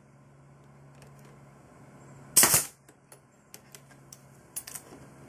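Pneumatic brad nailer firing one brad into the wooden jig about two and a half seconds in, a single sharp shot, followed by a few light clicks.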